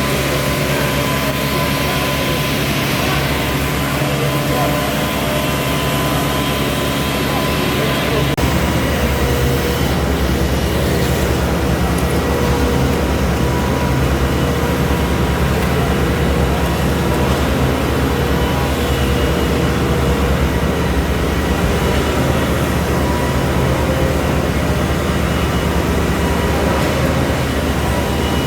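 Heavy concrete-pouring machinery running steadily, its engines droning. The sound shifts abruptly about eight seconds in.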